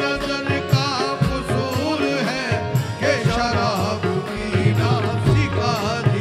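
Live qawwali music: a melody with bending, ornamented pitch from voice and harmonium or keyboard over a steady beat of tabla and drum kit.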